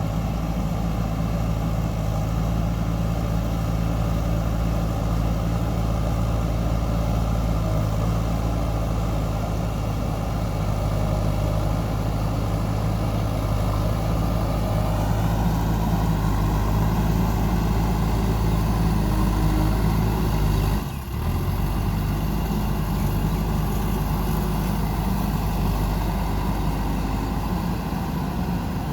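Diesel engine of a JCB 3DX backhoe loader running steadily while it works. The engine note gets a little fuller from about halfway, and the sound drops out briefly about two-thirds of the way through.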